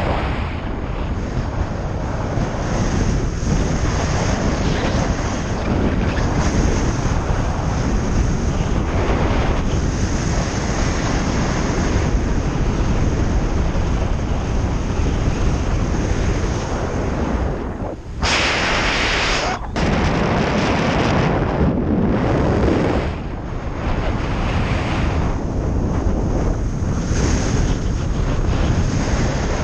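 Strong wind, about 10 m/s, rushing over the microphone of a camera carried on a speedflying flight: a loud, steady roar that rises and falls with the gusts. About two-thirds of the way through, a sharper hiss lasts a second and a half, then cuts off suddenly.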